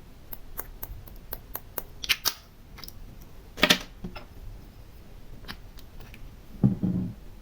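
Small hard objects being handled in a slime ASMR setup, clicking and tapping. There is a quick run of light clicks at the start, a louder clatter about halfway through, and a duller, lower knock near the end.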